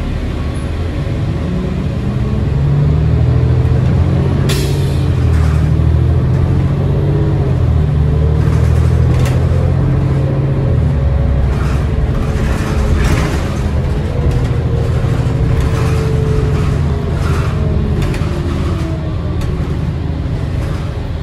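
Inside a 2010 New Flyer D40LF city bus: its Cummins ISL 8.9 L six-cylinder diesel runs under load, swelling louder about two seconds in, with a whine from the drivetrain that rises and then falls back as the bus gathers speed. A sharp click about four seconds in and scattered rattles in the second half come from the bus body.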